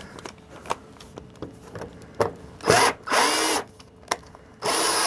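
Cordless drill-driver driving a wood screw into a wooden clamp block, running in two short bursts of about a second each, the second near the end. A few light handling clicks come before the first burst.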